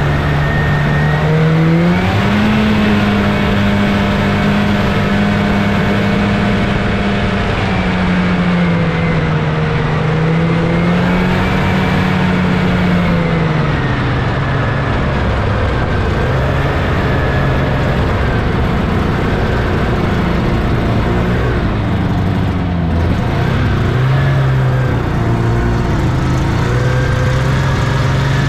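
1979 Scorpion Whip snowmobile's Cuyuna 440 two-stroke twin engine running under way. Its pitch climbs about two seconds in as the throttle opens, dips and climbs again, then settles lower about halfway through, with a brief dip and pick-up near the end.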